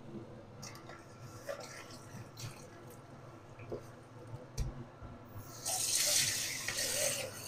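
Kitchen tap running into the sink for about two seconds near the end, rinsing vegetables. Before it come a few soft clinks and knocks of things being handled at the sink.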